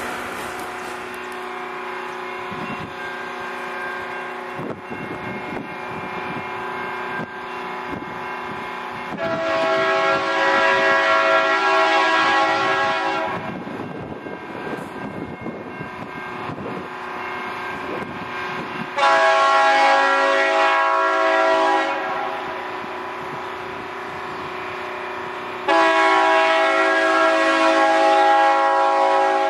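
Diesel locomotive air horn sounding three long blasts, each several seconds long, from a train not yet in sight, with a steady lower rumble between the blasts.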